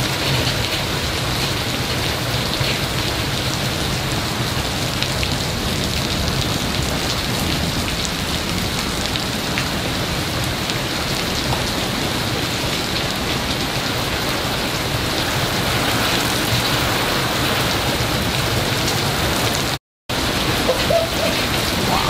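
Heavy thunderstorm rain pouring down steadily, heard through an open window, with a brief cut to silence near the end.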